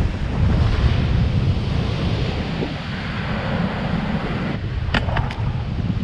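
Wind buffeting the microphone over the steady wash of breaking surf. A few sharp clicks come near the end.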